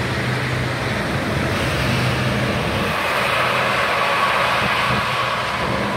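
A minivan driving slowly through standing water on a flooded road, its tyres hissing and splashing on the wet pavement over a low engine hum; the water hiss swells in the middle as it passes close.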